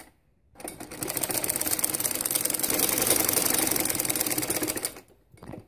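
Domestic sewing machine stitching through net fabric: it starts about half a second in, runs at a fast, even stitch rate for about four seconds, then stops.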